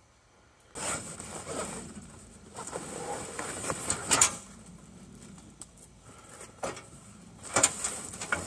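A large, heavy cardboard box being slid and shifted out of a car's cargo area onto a stand: scraping and rustling starting about a second in, a sharp knock around four seconds, and several more knocks near the end.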